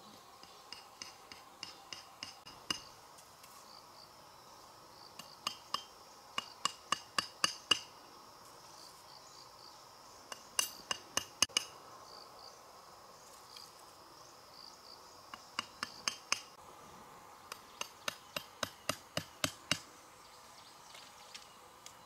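Hammer driving nails in five runs of quick strikes, about two to three a second, each blow with a ringing metallic note and most runs growing louder toward their end. Insects hum faintly behind.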